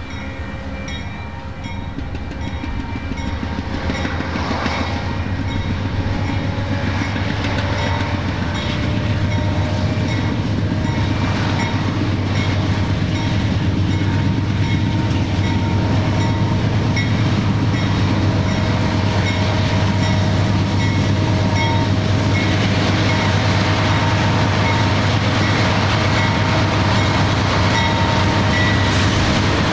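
Union Pacific local freight train passing, its diesel locomotive's engine running with a steady low rumble that grows louder over about the first ten seconds and then holds steady.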